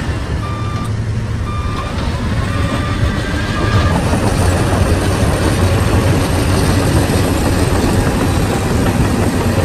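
Shantui bulldozer's diesel engine running steadily, with its reversing alarm giving four short beeps about a second apart in the first few seconds. The engine grows louder from about four seconds in.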